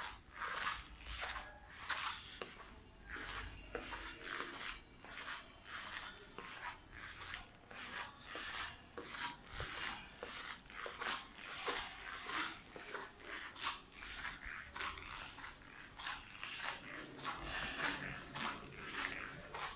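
Footsteps on a polished marble floor, a steady walking pace of about two short steps a second.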